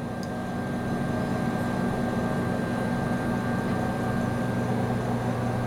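Steady low mechanical hum with a faint high whine, unchanging throughout.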